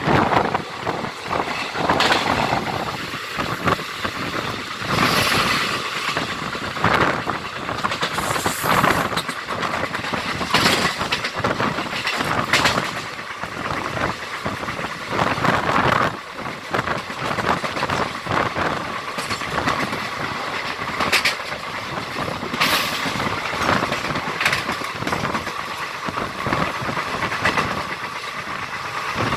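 Siddhaganga Intercity Express passenger train running on the rails: wheels clattering in irregular knocks over the track with a steady rush of wind, and a thin steady whine in the second half.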